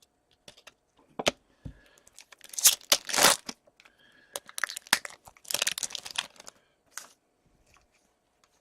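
A trading card pack's wrapper being torn open and crinkled in the hands, in two rough bursts of tearing and crackling.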